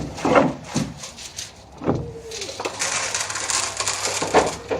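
A few knocks of a plastic bucket, then a couple of seconds of rustling, rattling feed as the bucket scoops and pours it.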